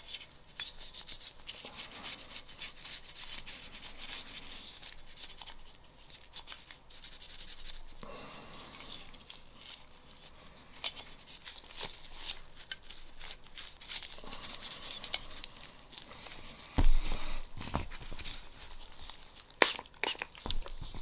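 Rubbing and wiping sounds from cleaning a Glock pistol by hand, with scattered small clicks of the gun's parts being handled. There is a loud knock about three quarters of the way through and another sharp one near the end.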